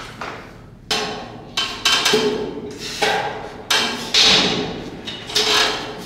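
Plate-loaded stack chest press machine clanking as reps are pressed: sharp metal knocks about once a second, each with a short ringing tail, as the weight plates lift and settle.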